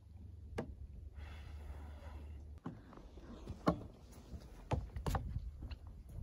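A low rumble for the first couple of seconds, then a few sharp knocks and clicks from a canvas tarp and its poles being handled and taken down.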